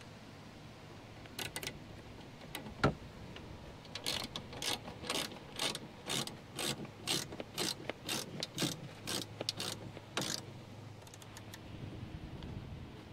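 Ratchet wrench clicking in short back-and-forth strokes, about two a second, as a bolt is turned on the roof-rack mounting plate. A single sharp knock comes just before the strokes start.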